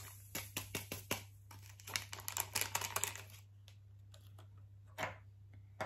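Foil yeast sachet crinkling and crackling in the hands as the dry yeast is shaken out of it, a dense run of small crackles that thins out after about three seconds, with one more crinkle about five seconds in. A steady low hum runs underneath.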